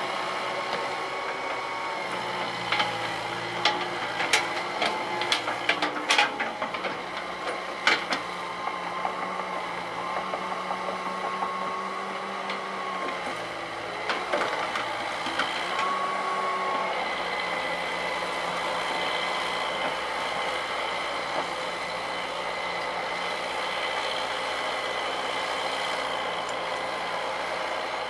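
Hitachi EX120 hydraulic excavator's diesel engine and hydraulics running under working load, the note shifting up and down as the arm and bucket move. A run of sharp knocks comes between about three and eight seconds in, then it runs more steadily.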